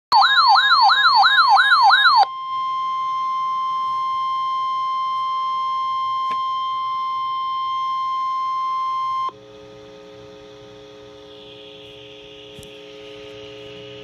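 NOAA weather radio receiver sounding a severe thunderstorm warning alert: a loud, fast warbling siren tone for about two seconds, then the steady 1050 Hz warning alert tone for about seven seconds. The tone cuts off suddenly, leaving a quieter steady low buzz of several tones.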